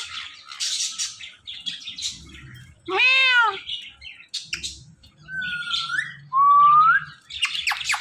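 Caged Indian ringneck parakeet calling: scattered chirps, then a mimicked cat meow about three seconds in. Two rising whistles follow after the middle, and a rapid run of sharp squawks comes near the end.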